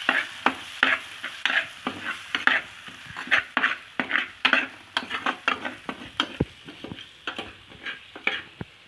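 Metal spoon stirring and scraping tomatoes and onion masala around a black cooking pot in quick repeated strokes, about two or three a second, over the light sizzle of the frying food.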